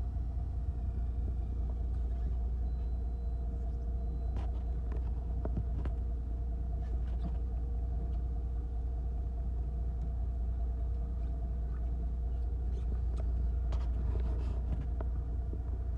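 Fishing boat's engine running steadily: a low rumble with a constant hum, with a few light clicks and knocks, most of them about four to six seconds in and near the end.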